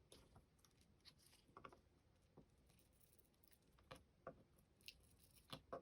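Faint, irregular small clicks and scrapes of plastic being handled as the adhesive skates are peeled off a Logitech M150 mouse's underside; a little more frequent in the second half.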